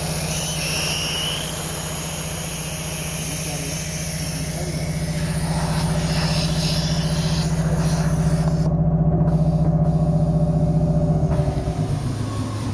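Tyre-changer machine's electric motor running with a steady hum as it turns a motorcycle wheel to work the tyre onto the rim. The hum pulses and grows louder partway through, then drops to a lower pitch near the end.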